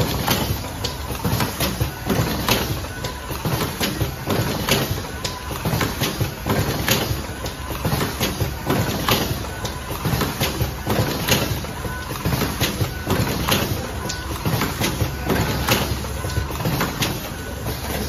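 Automatic rotary cartoning machine running: a continuous clatter of quick clacks and knocks, several a second, from its indexing turret and actuators over a low mechanical rumble.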